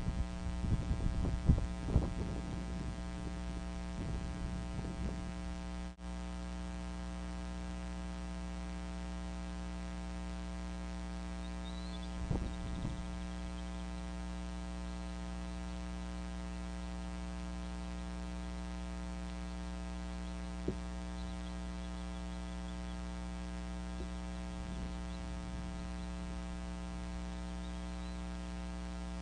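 Steady electrical hum in the eagle nest camera's audio. In the first few seconds it is overlaid by loud rustling and thumps as a bald eaglet flaps its wings among the nest sticks, and a few faint knocks follow later.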